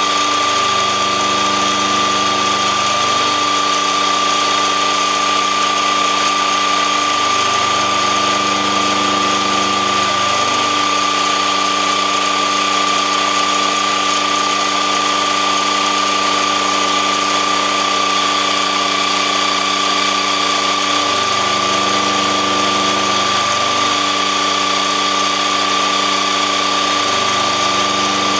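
Industrial Hobbies manual milling machine running, its end mill cutting a slot in a steel tool post adapter held in the vise. The machine makes a steady high whine over a lower hum that shifts a few times.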